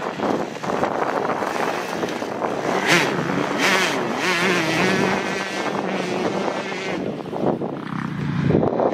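Motocross dirt bike engine revving hard as the bike rides past close by, its pitch rising and falling with throttle and gear changes.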